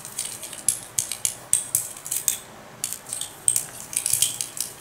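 Thin black rod scraping and ticking against the inside of a metal GBL airsoft cylinder as oil is worked into the bore: an irregular run of light, sharp metallic scrapes and clicks, several a second.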